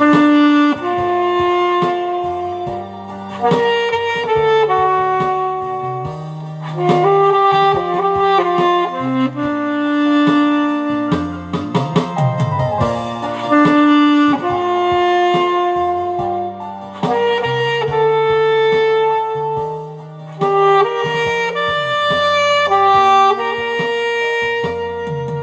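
Alto saxophone playing a slow melody of long held notes over an accompaniment with a bass line.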